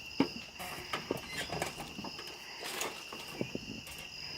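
Steady high-pitched insect chorus, with scattered light clicks and rustles over it.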